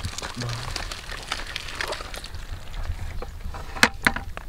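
Hands working through wet mud, dead leaves and twigs, rustling and crackling, with two sharp snaps near the end as a snakehead fish is pulled out.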